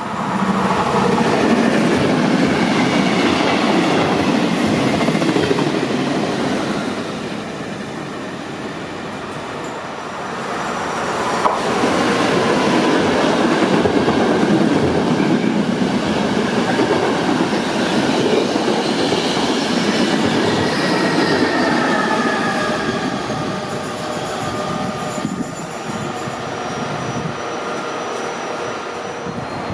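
Passenger train running past on the station tracks: a loud, steady rumble of wheels on rail that swells twice, with faint high squealing tones that slowly slide in pitch.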